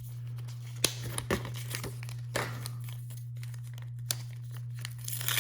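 Crinkling and tearing of a Pokemon trading-card pack wrapper being torn open by hand, in scattered short crackles.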